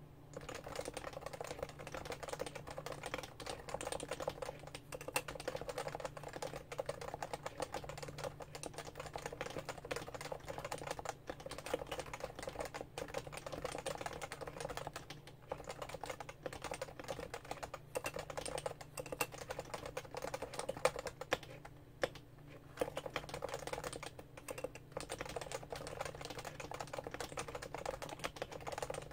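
Fast, continuous typing on a Topre Realforce R2 keyboard: a dense run of rapid key strokes on its Topre electrostatic capacitive switches, broken by a few short pauses.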